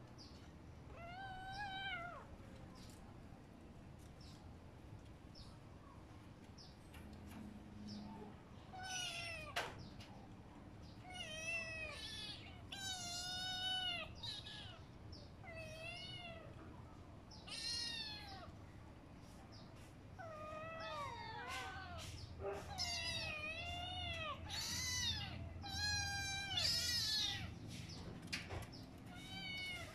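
Kittens meowing again and again: short, high, thin calls that rise and fall in pitch, coming thick and fast in two spells, in the middle and again near the end.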